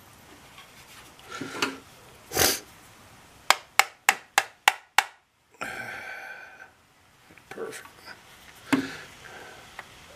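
Tool handling while a chainsaw-chain grinder is adjusted on the chain: a knock, then six sharp clicks in quick succession, about three a second, followed by a short scraping noise.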